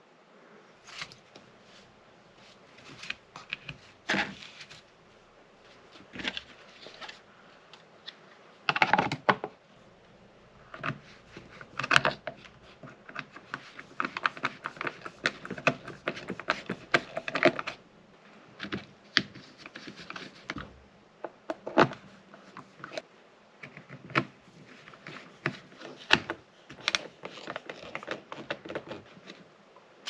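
Small stainless screws clicking and rattling as a hand sorts through a plastic bin of loose hardware, then scattered clicks and scrapes of screws being fitted and driven by hand into the pump's housing. The clicks come irregularly, in small clusters.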